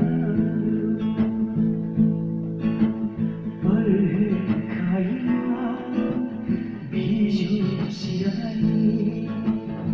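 Music: an instrumental passage of a song played on guitar, with chords strummed in a steady rhythm.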